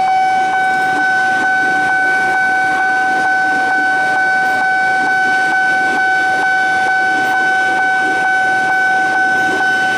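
Level-crossing warning alarm sounding one steady, unbroken electronic tone while an electric commuter train runs past over the crossing.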